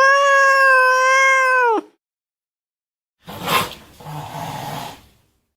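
Angry domestic cat: a long yowl held at a steady pitch, ending about two seconds in. After a short pause comes a sharp spit and then a hiss.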